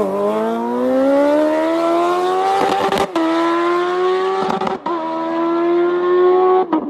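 Sport motorcycle engine accelerating hard and climbing in pitch, with three quick upshifts, about three and five seconds in and near the end, each a brief cut in the sound followed by a lower note that climbs again.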